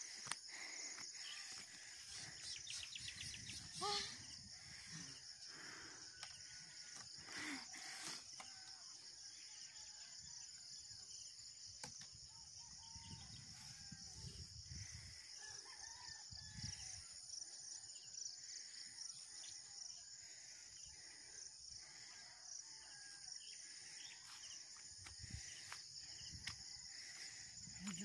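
Faint roosters crowing over a steady high-pitched hum of insects, with a few soft low thuds.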